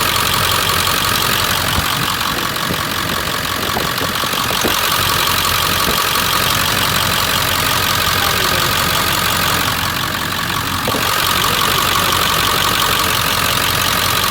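Ford 7.3 Powerstroke turbo-diesel V8 in a 2000 F-250 idling steadily.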